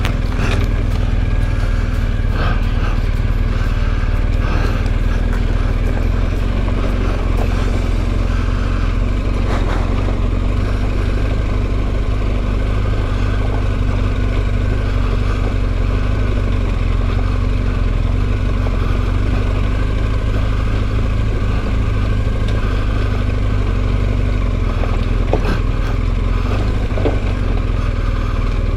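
BMW R1250GS Adventure's boxer-twin engine running steadily at trail pace, with a few sharp knocks scattered through.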